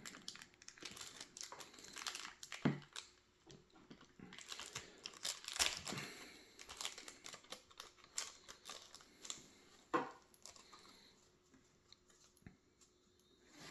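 Crinkling and rustling of a folded paper note and its wrapping being handled and opened out, in scattered crackles with a few sharper snaps.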